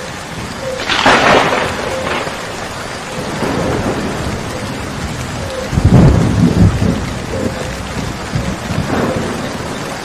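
Steady heavy rain with thunder: a sharp crack about a second in, a deep rolling rumble around the middle that is the loudest part, and a lighter rumble near the end.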